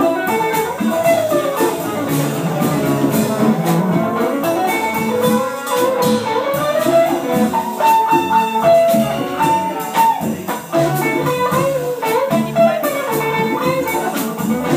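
Live music with guitar carrying a gliding melody over a steady beat.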